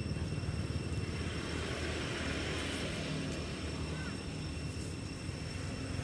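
Steady low rumble of a motor vehicle on the road, swelling slightly in the middle. A short high bird chirp comes about four seconds in.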